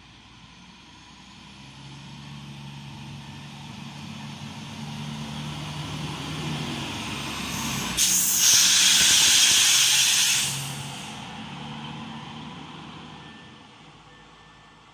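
Regional railcar approaching and passing through at speed. Its engine hum grows steadily louder, then about eight seconds in a loud rush of hissing noise starts abruptly as the front reaches the microphone and lasts two or three seconds. The sound then fades as the train moves away.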